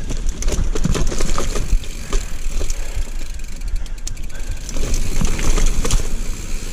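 Giant mountain bike rolling fast over a rough, rooty trail, its frame and drivetrain rattling and clicking over the bumps above a steady low rumble of tyres and wind. It is the crickety, clackety noise the rider notices in this bike, though it is less than a year old.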